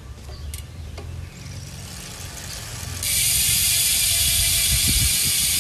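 Rear freehub of a Hunt Aerodynamicist 44 road wheel, the rear wheel spun by hand with the bike lifted. About three seconds in, the freehub breaks into a loud, fast, steady buzz of clicking as the wheel coasts.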